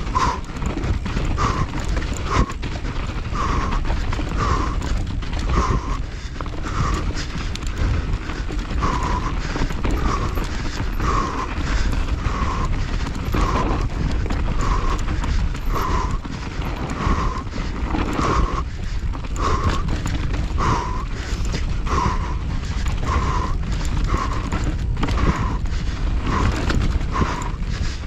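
Mountain bike clattering and rattling over a rough, rutted trail, with steady rumbling wind on the microphone. Over it comes the rider's hard, rhythmic panting, roughly one breath a second, from the physical effort of the race stage.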